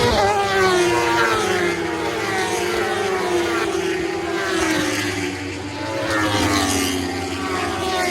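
Several racing motorcycles running at high revs past the trackside, their engine notes falling in pitch as they go by; another group of bikes passes about five to six seconds in.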